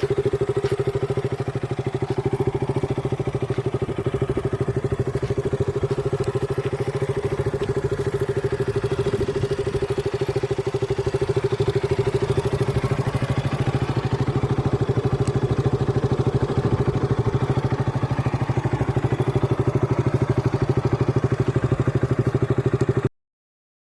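KTM RC200 BS4's single-cylinder engine idling steadily through its exhaust, with an even, fast pulsing beat; the sound cuts off abruptly near the end.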